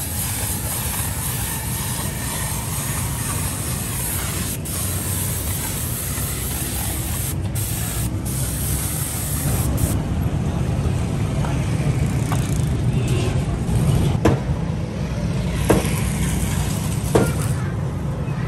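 Compressed-air paint spray gun hissing steadily as paint is sprayed onto a steel tank, over a steady low rumble. The hiss thins about ten seconds in, and a few sharp clicks follow near the end.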